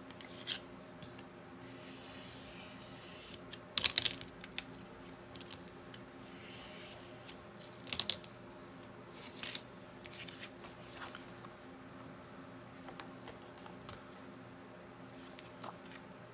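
Paper being trimmed and handled: scattered short snips and clicks, with a soft rustle of paper sliding between them.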